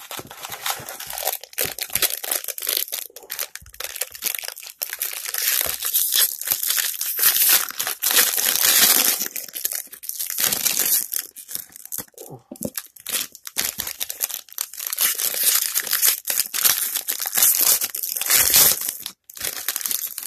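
Trading-card pack wrappers being torn open and crinkled by hand: a dense run of crackling and tearing, loudest about 7 to 9 seconds in and again from about 15 to 19 seconds in.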